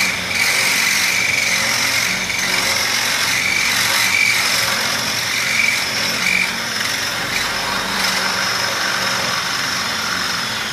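Power drill running steadily as its bit bores a hole through the pen wall, a high, even whine that cuts off at the end.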